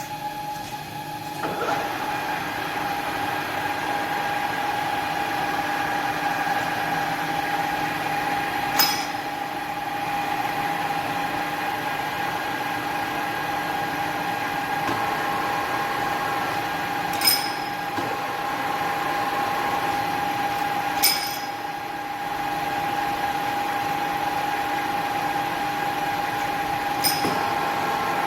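Dalian centre lathe running with a steady whine that comes up about a second and a half in, with four sharp clicks along the way.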